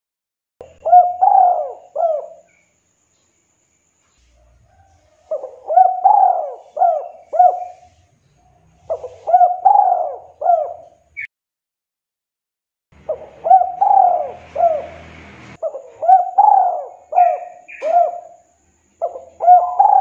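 Spotted dove cooing: about six phrases, each of four or five quick coos that rise and fall in pitch, with short pauses between phrases.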